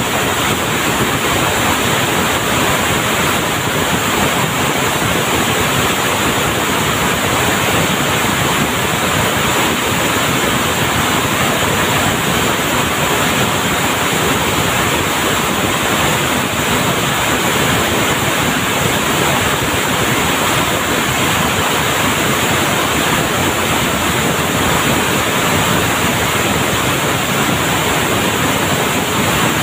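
Steady, loud din of textile mill machinery: a dense, even rushing clatter with no pauses or changes.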